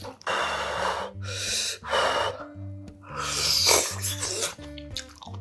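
Several long, loud slurps of spicy kimchi ramen noodles and broth, with short clicks near the end, over background music with a steady bass line.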